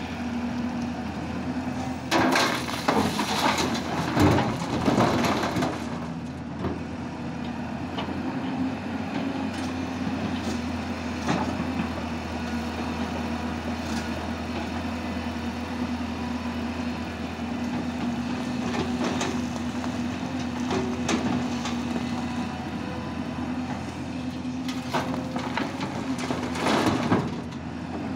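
Hyundai crawler excavator's diesel engine running steadily, with two spells of loud scraping and clattering as the bucket works into the rock and earth: one a couple of seconds in lasting several seconds, and a shorter one near the end.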